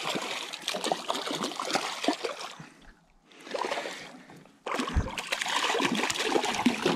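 A small hooked salmon (a jack) thrashing and splashing at the surface beside a small boat as it is reeled in. It comes in bursts, with a short lull about three seconds in, then a sudden hard splash with a low thump a little before five seconds and more splashing after it.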